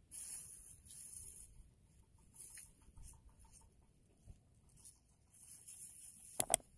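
Faint outdoor background with soft hiss and a few small chirps, then a sharp double click about six and a half seconds in: the mouse-click effect of a pop-up subscribe-button animation.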